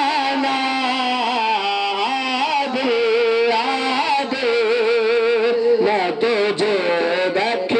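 A man's solo melodic Islamic recitation, sung through a microphone. He holds long notes with wavering, ornamented pitch and pauses briefly between phrases.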